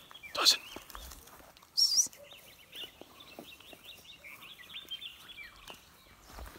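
Wild birds calling: a loud, high, wavering whistled note about two seconds in, then a run of quick repeated chirps, with a loud short sound about half a second in. Footsteps crunch faintly on dry grass and leaf litter.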